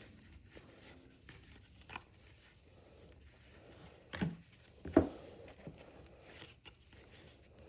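Quiet handling of baseball trading cards: soft scraping and sliding as the cards are worked out of a retail hanger pack, with a few short taps, the loudest about five seconds in.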